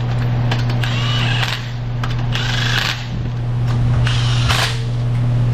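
A power tool running in several short bursts, each about half a second long, over a steady low machine hum.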